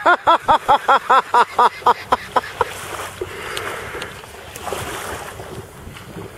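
A person laughing in a quick run of high-pitched 'ha' syllables, about five a second, that fade away over the first two and a half seconds. After that, a steady hiss of wind and water.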